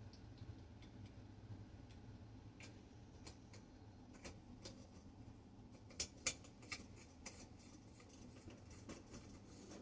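Faint, irregular light clicks and taps of small metal lantern parts being handled, with two sharper clicks about six seconds in, over quiet room tone.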